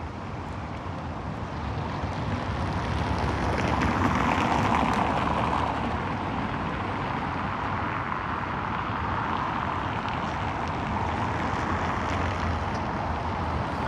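City street traffic noise, steady and rushing, swelling as a vehicle passes a few seconds in, then settling back to a steady hum of traffic.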